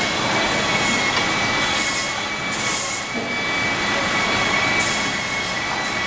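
Steady workshop machinery noise with a constant high whine, swelling now and then into a brief hiss.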